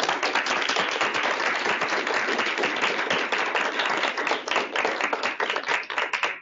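Audience applauding, many hands clapping at once, dense and steady.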